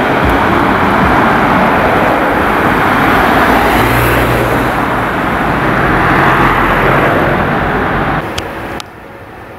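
Loud road-traffic and vehicle noise on a city street as an ambulance pulls away among cars, dropping abruptly to a much quieter background shortly before the end.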